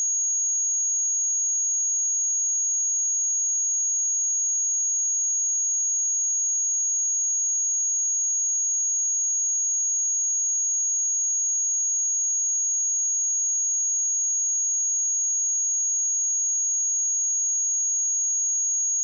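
A pure 6632 Hz sine-wave test tone, one steady high-pitched whistle-like note held without a break.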